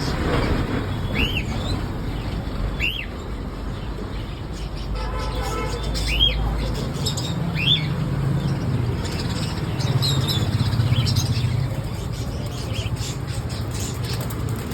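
Birds calling: short, arched chirps that rise and fall, repeated every second or two, over a steady low rumble.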